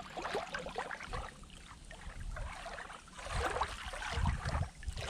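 Small lake waves lapping and splashing at the waterline right at the microphone, in irregular washes, with a deeper surge about four seconds in.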